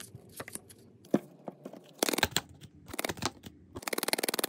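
Tarot cards being shuffled and handled: scattered card snaps, then two quick fluttering runs of riffling cards, about two seconds in and again near the end.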